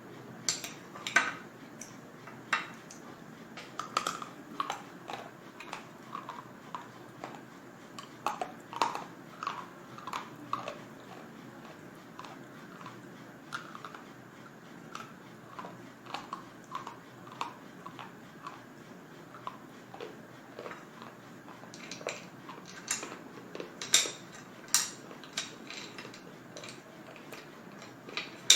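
Crisp cracking and crunching as someone bites and chews pieces of slate bar (edible slate), in irregular sharp snaps with quieter grinding between them. The snaps come thickest in the last several seconds.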